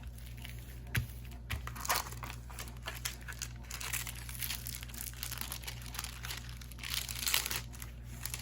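Plastic packaging of a diamond painting kit crinkling and rustling as it is handled, in irregular bouts with a few sharper crackles, busiest about two seconds in and again near seven seconds.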